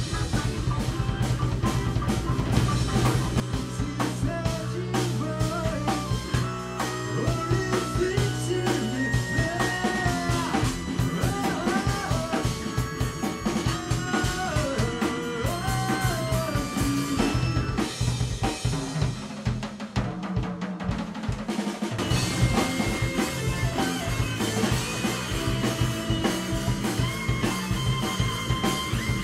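Live progressive rock band playing, with busy drum kit throughout under bass, keyboards and electric violin.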